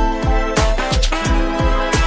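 Background music with a steady beat: a bass drum with falling low thumps about three times a second under sustained instrumental chords.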